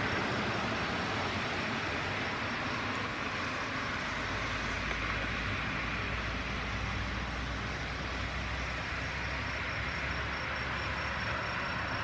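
Embraer 195-E2's Pratt & Whitney PW1900G geared turbofans running at idle as the jet taxis. The sound is a steady rushing with a low hum and a faint high whine.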